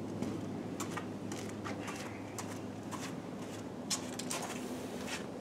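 Footsteps scuffing on a concrete shop floor, short irregular clicks and scrapes, over a steady low hum.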